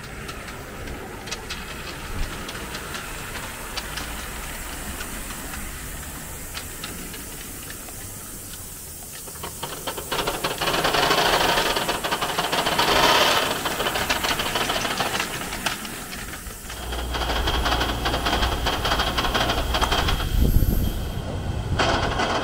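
Live steam model locomotive hissing steam, with a louder rush of steam about halfway through and a lower, rumbling running sound from about two-thirds in.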